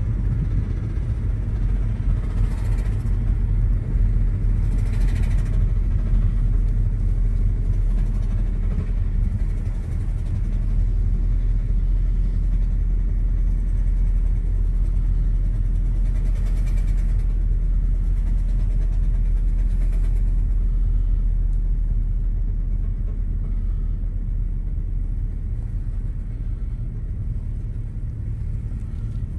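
Steady low rumbling drone of a Lexus GS300 under way, heard inside the cabin, which the driver suspects comes from worn front wheel bearings. A few brief swells of hiss rise over it.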